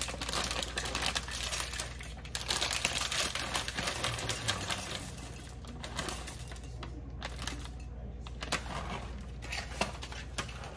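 Chocolate chips poured from a plastic bag into a bowl on a kitchen scale: a dense patter of small clicks with bag crinkling for about five seconds, then scattered clicks.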